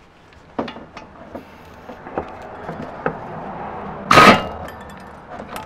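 Pneumatic impact wrench fired in one short, loud burst about four seconds in, breaking loose a tight 17 mm caliper mounting bracket bolt. Before it come a few sharp clicks and knocks of the socket being fitted onto the bolt.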